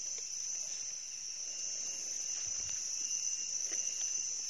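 Insects calling in a steady, unbroken high-pitched drone, with a few faint clicks.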